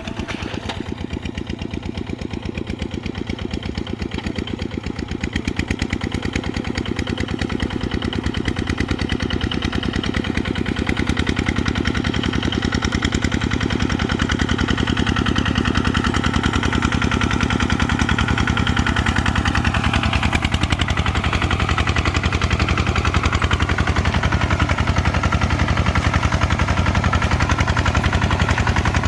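Kubota RT140 single-cylinder diesel engine running with a fast, even chugging. It grows louder over the second half.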